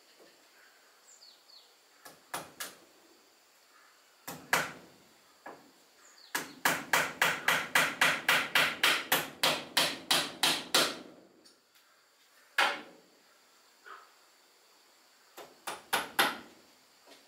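Hammer striking nails into wooden wall cladding boards: a few separate blows, then a quick run of strikes at about four a second for several seconds, then scattered blows again.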